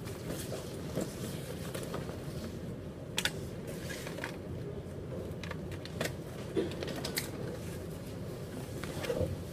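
A backpack being handled and rummaged through: fabric rustling and several sharp clicks and knocks as things inside are moved, over a steady low room hum.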